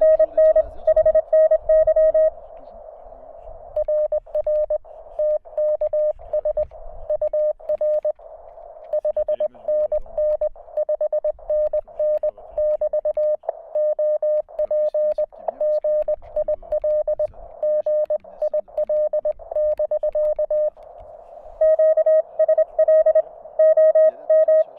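Morse code tones from a Weber MTR transceiver: a single steady tone keyed on and off in dots and dashes. The keying at the start and again from about 21 seconds on is a little louder and brighter than the stretch in the middle, which runs over a faint receiver hiss.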